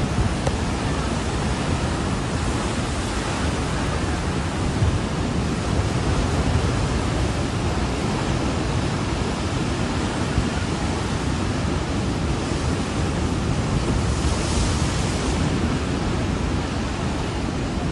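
Steady rushing of wind and surf, with a brief louder hiss about fifteen seconds in.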